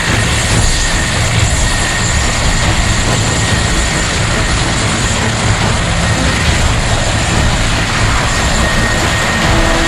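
Mi-25 attack helicopter running, a steady loud rush of turbine and rotor noise with a fast low pulsing. A steady whine comes in just at the end.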